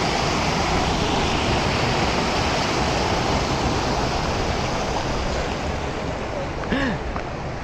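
Steady rushing of flowing water, easing slightly near the end. A brief voice-like sound comes about seven seconds in.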